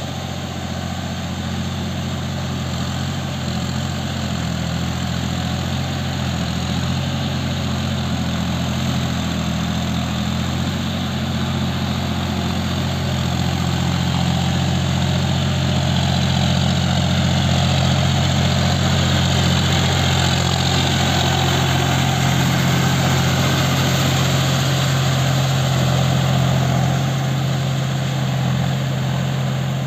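John Deere tractor's diesel engine running steadily under load while pulling a rotary tiller through wet paddy mud. It gets louder through the middle and eases off near the end.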